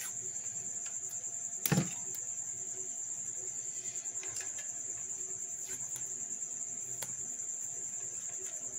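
Crickets chirping in a steady high trill, with one sharp knock about two seconds in and faint rustles and ticks of electrical tape being wrapped around wires.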